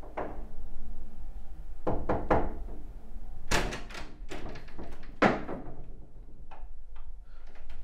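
Knocks and thuds on a wooden door: three near two seconds in and several more a second later. The loudest bang, about five seconds in, comes as the door is pushed open.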